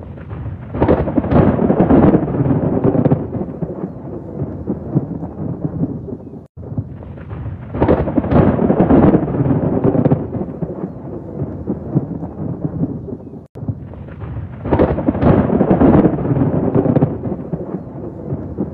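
Thunder rolling in three long rumbles about seven seconds apart, each swelling then fading, over steady heavy rain; the sound drops out abruptly for a moment just before the second and third rumbles.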